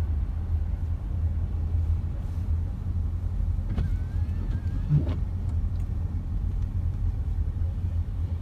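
Steady low road and engine rumble heard from inside a moving car on a snowy, salted highway. A couple of brief clicks come about four and five seconds in.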